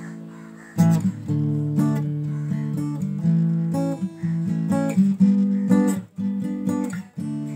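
Background music: acoustic guitar strumming chords, with no singing yet.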